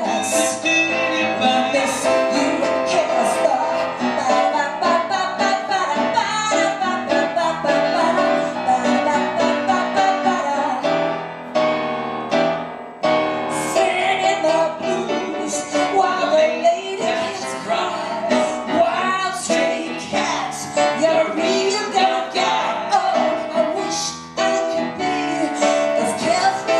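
A woman singing a cabaret song into a microphone, accompanied by grand piano, with a brief pause about twelve seconds in.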